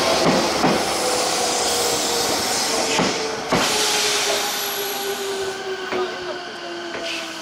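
Odakyu commuter electric train running past and away. A few sharp wheel clacks ring out over a rushing noise, and the motor whine slides slowly lower as the train fades.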